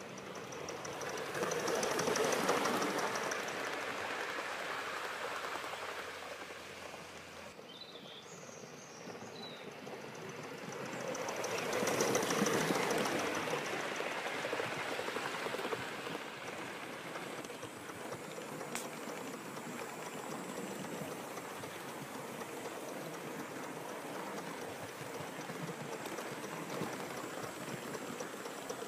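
A gauge 1 live-steam model of a North Eastern Railway R1 4-4-0 locomotive running with its coaches on the track: a steady rushing rattle of wheels on rail and exhaust steam. It swells about two seconds in and again around twelve seconds as the train passes close, then runs on steadily.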